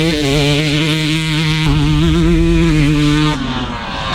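Two-stroke dirt bike engine running at steady, slightly wavering revs, then dropping back about three and a half seconds in.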